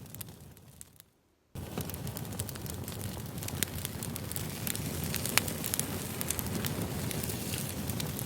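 Campfire crackling: a steady hiss with frequent sharp pops. It fades down to near silence about a second in, then cuts back in abruptly half a second later.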